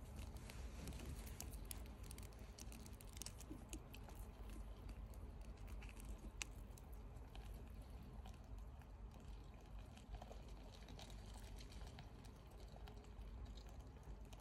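Brazilian whiteknee tarantula (Acanthoscurria geniculata) chewing its prey: faint, irregular crunching clicks as it works the prey in its mouthparts, with one sharper click about six seconds in.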